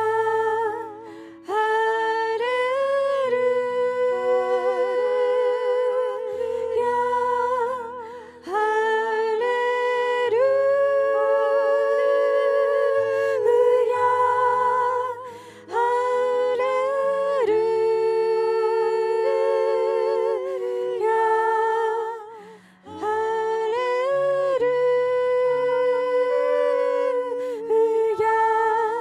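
A group of women singing "Hallelujah" over and over in slow, harmonised phrases with vibrato, over soft sustained keyboard notes. The singing breaks briefly between phrases, about every seven seconds.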